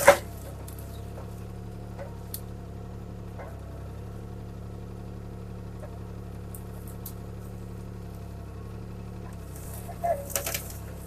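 CAT 303C CR mini excavator's diesel engine running at a steady pitch while the bucket works among small trees. There is one loud crack right at the start, a lighter snap about two seconds in, and a cluster of cracking snaps near the end, as wood and brush give way.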